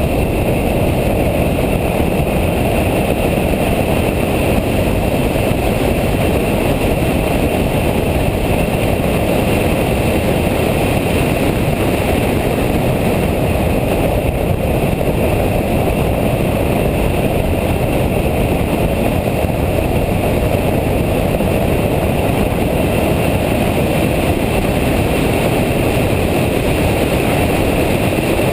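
Nissan track car at speed, heard from inside the cabin: a steady, dense mix of engine, tyre and wind noise with no clear revving or shifting.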